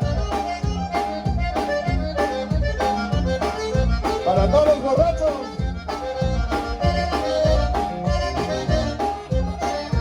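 Conjunto music: a button accordion plays an instrumental passage with runs and trills over a steady bass and drum beat.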